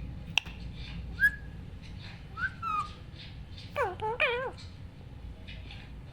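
Rose-ringed parakeet giving short whistled calls: a sharp chirp about a second in, a couple of brief rising-and-falling notes around two and a half seconds, then two wavering, warbling calls near four seconds.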